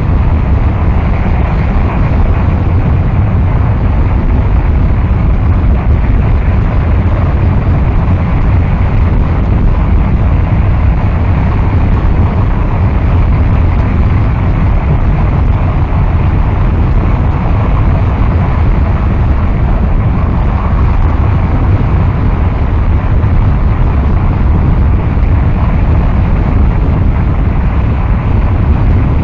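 Harsh noise wall: a loud, unchanging mass of rumbling static, heaviest in the low end, with no beat, melody or pauses.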